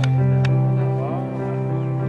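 Background music of slow, held notes over a steady low bass note.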